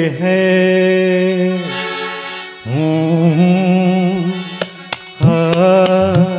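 Ghazal singing: a man's voice holds long drawn-out notes over harmonium, with a few sharp tabla strokes shortly before a new held note near the end.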